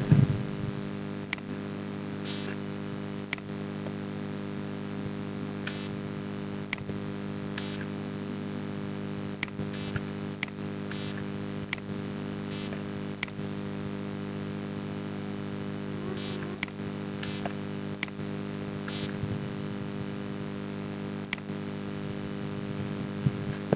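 Computer mouse clicking now and then, about a dozen sharp single clicks at irregular intervals, over a steady electrical mains hum, with a few short soft hisses in between.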